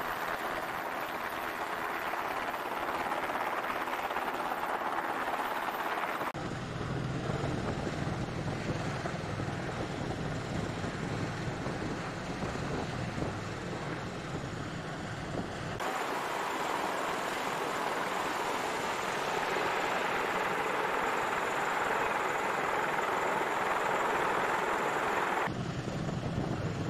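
Rotor noise from military aircraft hovering low over the sea, among them an MV-22B Osprey tilt-rotor, mixed with wind and rushing water. The sound changes abruptly three times, switching between a hissing rush and a deeper, steadier hum.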